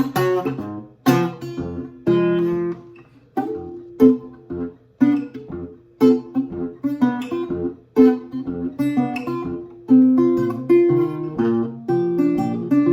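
Acoustic guitar playing an instrumental passage of a country blues song: quick, sharply picked notes over a bass line, with no singing.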